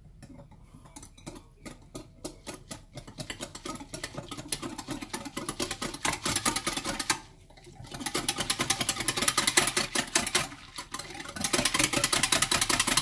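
A utensil beating a flour mixture in a bowl, the harira's thickener being mixed: fast, regular clicking of the utensil against the bowl in three bursts, pausing briefly about seven and eleven seconds in.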